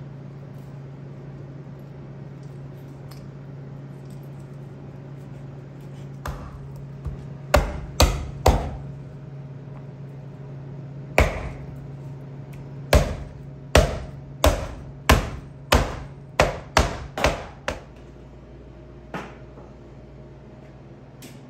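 Kitchen knife chopping hard through chicken on a cutting board. There are three quick chops about seven seconds in, then a run of about nine chops roughly a second apart that come faster toward the end.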